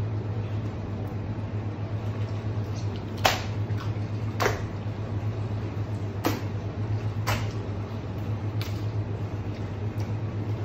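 Steady low machine hum, with about half a dozen short, sharp wet slaps and knocks of raw octopus and hands on a plastic cutting board, the loudest a few seconds in.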